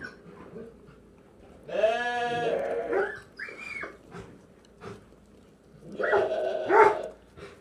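Lambs bleating: a long wavering bleat about two seconds in, then shorter, higher bleats, and another group of bleats about six seconds in.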